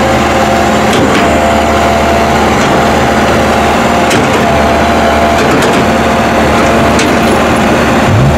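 Diesel engine of a crawler excavator running steadily under working load, with a few sharp knocks and clanks along the way.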